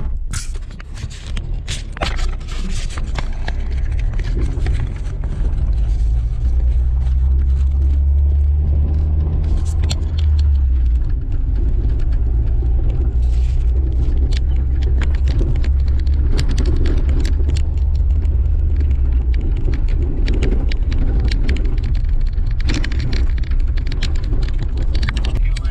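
Jeep Wrangler TJ driving on a rough dirt road, heard from inside the cab: a strong low engine and tyre rumble that builds a few seconds in and eases near the end, with frequent sharp clicks and knocks over it.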